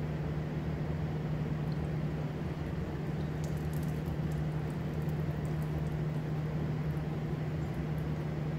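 Water running over an acrylic in-channel vent visor and the truck's window glass in a water test: a steady watery noise. A low steady hum sits underneath.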